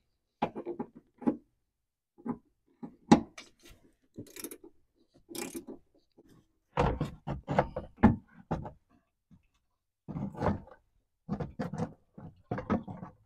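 Irregular clicks and knocks of hand-tool work on the radiator's mounting bolts, with clusters of quick taps. Near the end the radiator knocks against the core support as it is lifted out.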